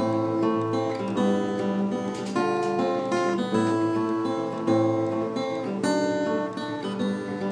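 Jasmine cutaway acoustic guitar played solo, picking out a chord pattern with a fresh chord struck about once a second.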